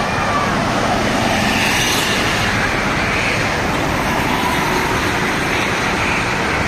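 Road traffic passing close by: a loud, steady rush of engine and tyre noise.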